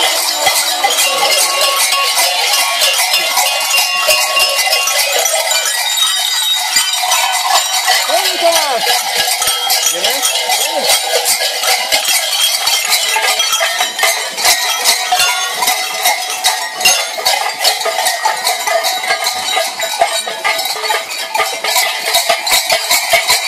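Cowbells carried by people in St. Nicholas Eve devil costumes, clanging continuously in a rapid, dense jangle.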